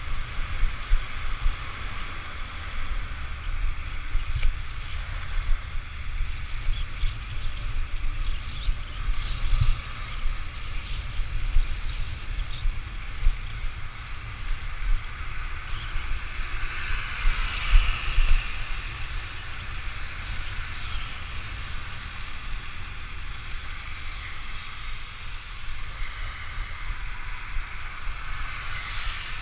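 Wind rushing over an action camera's microphone on a moving rider, with a steady low rumble and road noise. A louder swell comes a little past the middle.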